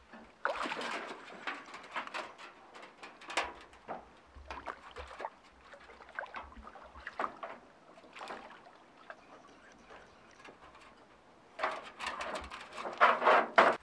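Water splashing and sloshing as a large carp in a landing net is handled at the water's edge and lifted out of the lake, in irregular bursts with the heaviest splashing near the end.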